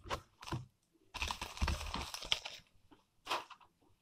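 Pokémon trading cards being handled: a couple of light clicks, then about a second and a half of cards sliding and rustling against each other, and one more short flick near the end.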